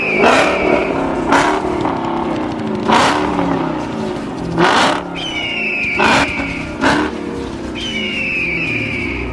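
Supercharged 6.2-litre HEMI V8 of a Dodge Hellcat revving in about six short bursts as it crawls over rough ground. After several of the bursts a high whine falls away.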